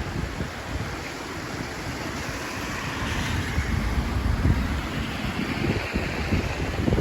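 Rushing floodwater of a normally dry creek swollen by heavy rain, a steady hiss that grows fuller about three seconds in, with wind buffeting the microphone in gusty low rumbles.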